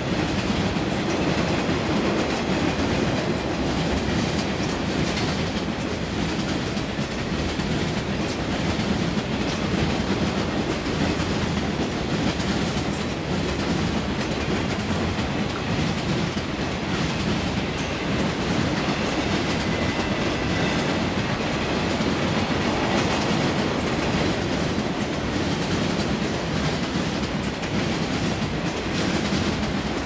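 Freight train of loaded flatcars rolling past, a steady noise of steel wheels on the rails with occasional clicks.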